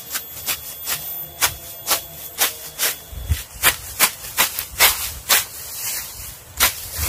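A hand blade hacking through grass stems close to the ground in quick repeated strokes, about two a second, with a short pause near the end.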